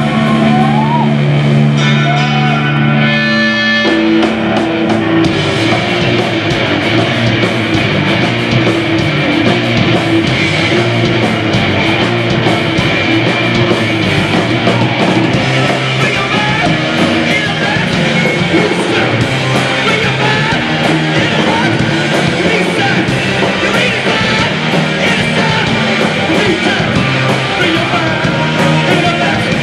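Postpunk rock band playing live on electric guitars, bass guitar and drums. Held notes ring for the first few seconds, then the drums and full band come in about four seconds in and play on steadily and loud.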